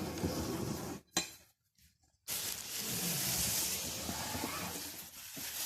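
Food sizzling in a hot frying pan. It comes briefly at first, then runs steadily from about two seconds in.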